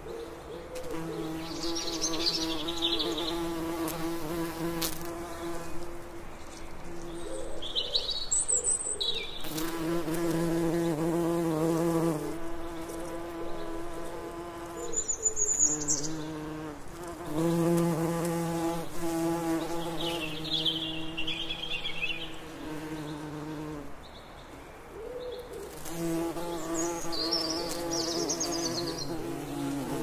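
Bees buzzing close by, a low pitched hum that swells and fades as they fly near and away, dropping out briefly a few times. Over it, songbirds sing short high phrases about five times.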